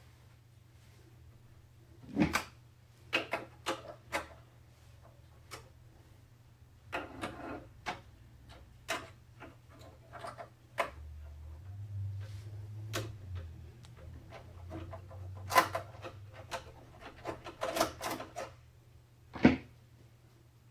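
Computer parts being handled during a PC build: scattered clicks, taps and knocks of plastic and metal pieces with brief rustling. A low hum comes in for a few seconds in the middle.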